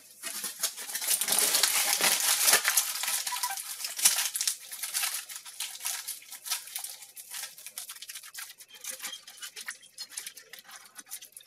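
Aluminium foil crumpled and wadded by hand: dense crinkling for the first four or five seconds, then sparser crackles as the foil wad is pressed onto a twisted-wire armature.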